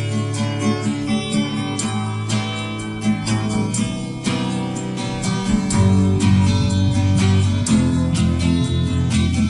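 Music: plucked and strummed acoustic guitar playing a steady rhythm, with a fuller, louder bass part joining about six seconds in.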